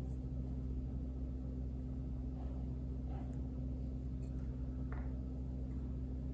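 Steady low electrical hum, with a few faint light scrapes and ticks of a toothpick dabbing oil paint onto a small model part.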